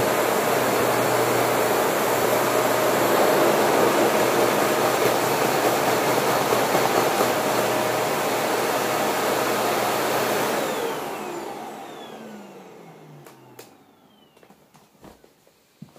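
Shark Navigator upright vacuum cleaner running steadily, then switched off about ten seconds in, its motor winding down with a falling whine over a few seconds. A few faint clicks follow near the end.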